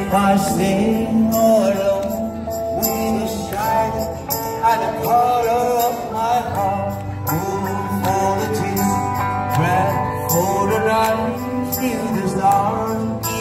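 Live band music: a man sings through a microphone over electric guitar and a steady beat.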